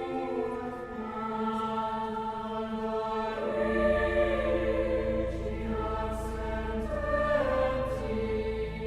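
Choir singing slow, sustained held chords. A low steady bass note joins underneath about three and a half seconds in.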